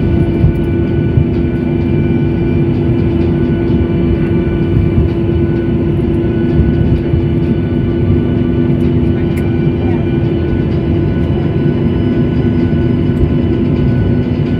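Aircraft engines running with a loud, steady roar and a steady hum through it.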